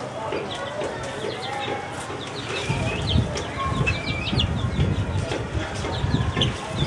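Aseel chickens calling, with clucking and many short high chirps throughout. A low rumble joins in about two and a half seconds in.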